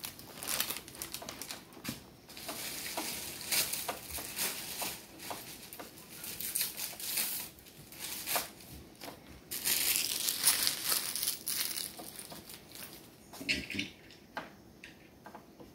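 Plastic packaging crinkling and rustling in irregular bursts as it is handled.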